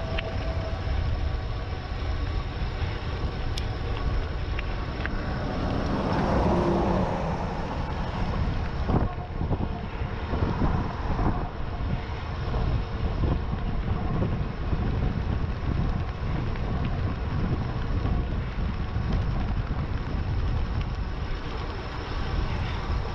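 Wind rushing over the camera microphone together with rolling road noise from a moving e-bike, a steady low rumble with a faint steady hum on top. It swells louder for a couple of seconds about six seconds in, and a few light clicks come through around nine to fourteen seconds in.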